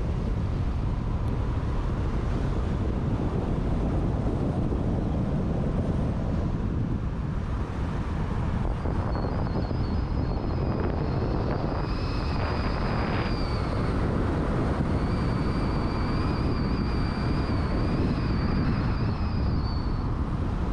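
Car driving, a steady low rumble of road and engine noise. From about nine seconds in, a thin high wavering whine comes and goes twice over the rumble.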